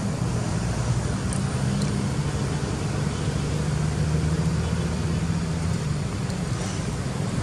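A steady low engine hum from a motor vehicle running off-screen, with a few faint high ticks.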